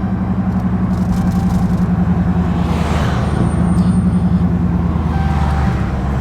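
Dodge Charger Scat Pack's 392 HEMI V8 running under load as the car accelerates: a low, pulsing exhaust drone that builds over the first few seconds and eases slightly near the end. The owner says the exhaust sounds like a bad chainsaw.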